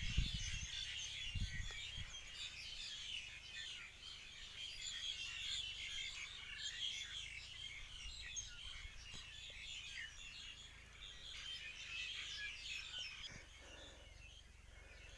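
A chorus of small birds chirping and twittering, many short calls overlapping at a low level. A few low bumps sound in the first couple of seconds.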